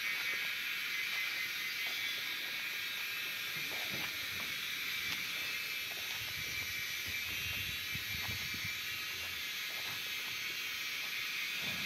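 A steady, high, hissing chirr from an evening insect chorus. Soft low thuds and scuffs come from about four to nine seconds in, as two head-butting cattle shove and scrape their hooves in the dirt.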